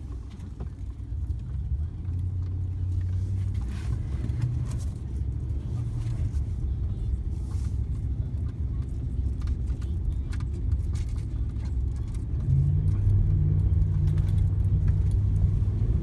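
A 2015 Ram pickup driving, heard from inside the cab: a low, steady engine and road drone with scattered clicks. The engine note grows louder about twelve seconds in.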